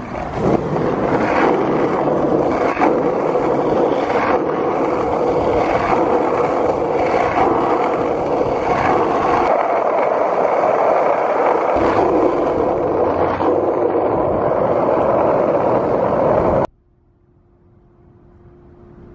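Skateboard wheels rolling fast over asphalt, a steady gritty roar with occasional clacks as the board crosses cracks and seams. It cuts off suddenly about seventeen seconds in, leaving a faint low hum.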